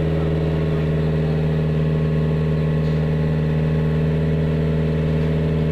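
Hitachi mini excavator's diesel engine running steadily at a constant pitch.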